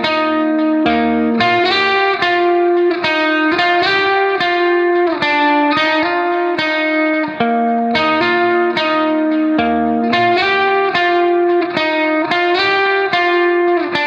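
Background music: a guitar picking a steady, continuous pattern of notes, several to the second.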